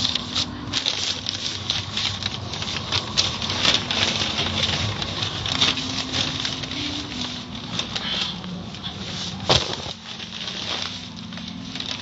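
Automatic car wash running: cloth brush strips slapping and water spraying against a car in a dense crackling spatter, over a steady machine hum. There is one sharp knock about nine and a half seconds in, and the wash noise fades near the end.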